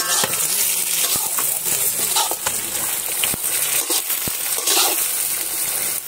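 Sliced onions, green chillies and tomatoes sizzling as they fry in a metal wok over a wood fire, with a few sharp clinks from the metal ladle stirring them against the pan.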